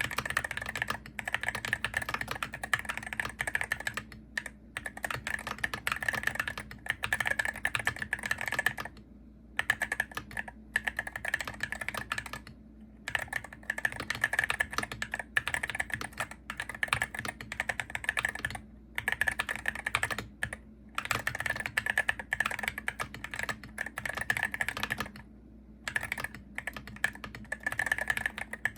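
Continuous typing on a Hero68HE gaming keyboard: rapid, dense key clicks in long runs, broken by a few short pauses.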